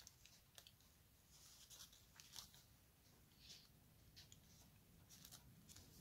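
Near silence with faint, irregular rustles and small ticks: embroidery floss being drawn through cross-stitch fabric as a needle pokes through the canvas.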